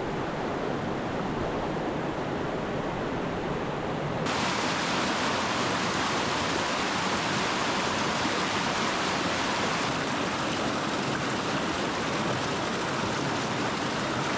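A rocky mountain stream, swollen by overnight rain, rushing steadily over rocks. About four seconds in, the rush turns louder and hissier.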